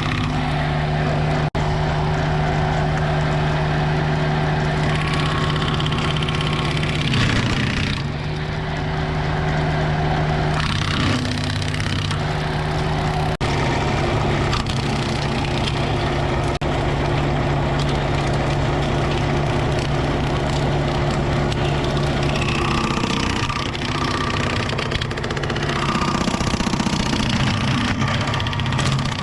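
A tractor engine runs steadily, driving a PTO-powered bushhog (rotary cutter) whose blades carry bolted-on chainsaw-blade sections, with a rough noisy layer of the cutter working through brush. The sound changes abruptly several times, as at cuts in the footage.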